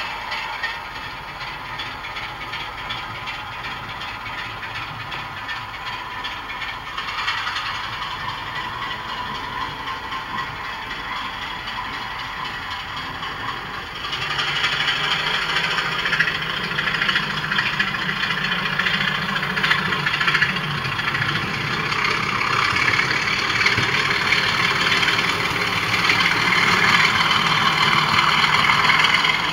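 Model railway locomotives running on the track, a steady motor whir and wheel rattle that steps up in loudness about halfway through and keeps growing as a train comes closer.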